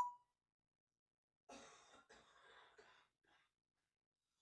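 Parrot faintly imitating a cold-sufferer's throat clearing or cough, a rough sound lasting about a second and a half that starts about a second and a half in, with near silence around it.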